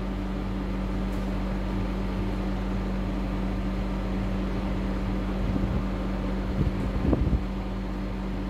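Steady low background hum, with a few faint short rustling noises about two-thirds of the way through.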